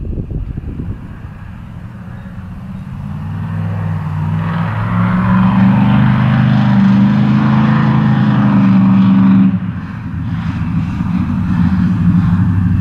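Drive-by of a Chevrolet C10 pickup with a 454 big-block V8, its engine note building over several seconds as the truck accelerates closer. The note drops suddenly about nine and a half seconds in, then picks up again as the truck passes.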